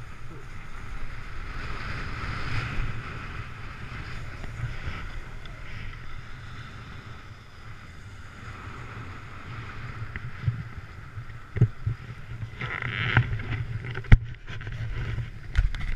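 Snowboard sliding over snow with wind rushing on the microphone, a steady hiss over a low rumble. Several sharp knocks fall in the last few seconds.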